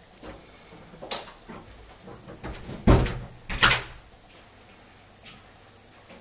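Battery acid draining from an inverted six-bottle acid pack into a new motorcycle lead-acid battery, with air bubbling up into the bottles in a few separate gurgles: the loudest two come about three and three and a half seconds in.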